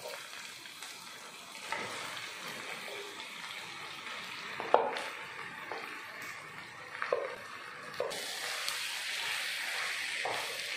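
Onions frying in oil, sizzling in a pan as mashed boiled potatoes are tipped in, with a few sharp knocks of a utensil, the loudest about halfway through. In the last few seconds a wooden spatula stirs the potatoes through and the sizzle grows louder.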